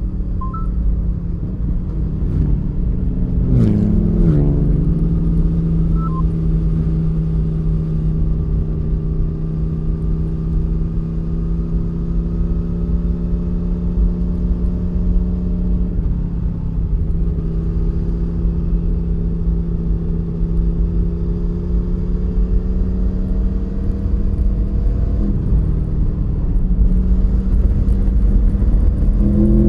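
The Aprilia Tuono V4 1100 Factory's V4 engine running at steady road revs, its pitch holding nearly constant for long stretches. About three to four seconds in there are two sharp cracks and a quick dip and recovery in revs. The revs climb near the end.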